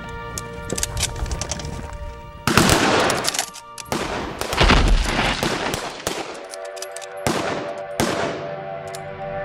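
Bursts of rapid gunfire with several heavier bangs, loudest about two and a half and four and a half seconds in, over film score music.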